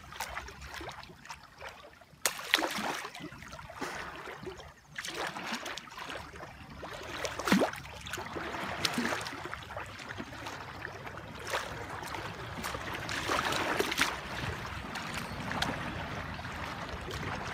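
Pool water sloshing and lapping as Asian elephants wade and roll in it, with several sharper splashes along the way.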